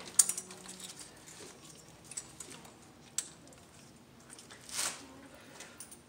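Light clicks and knocks of an ignition coil and spark tester being handled and set against the engine, with a brief hiss nearly five seconds in.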